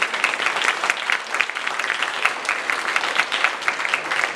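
Audience applauding: many people clapping steadily at the close of a talk.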